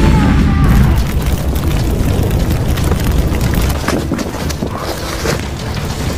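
Explosion sound effect: a deep rumble that slowly fades, with scattered crackles.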